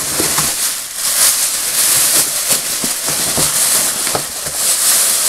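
Thin plastic bag crinkling and rustling as a boxed toy is pulled out of it, with many small crackles throughout.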